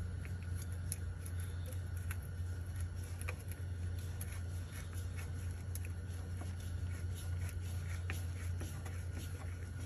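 A steady low hum runs underneath faint, scattered small clicks of a nut driver turning the screw of a worm-drive hose clamp on a rubber coolant hose.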